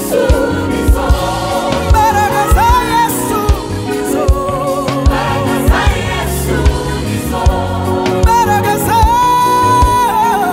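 A live gospel worship song in Kinyarwanda: a singer and backing choir sing over a band with drum kit and keyboard. Drum hits come steadily, and a long high sung note is held near the end.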